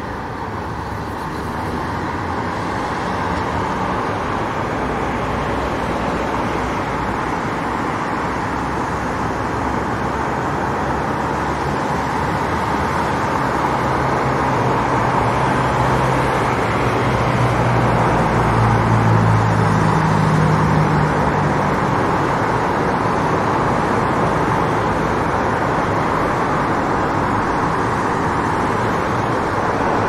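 City street traffic ambience: a steady wash of road traffic noise. A vehicle engine's low drone comes up through the middle and fades again, with the traffic loudest about two-thirds of the way through.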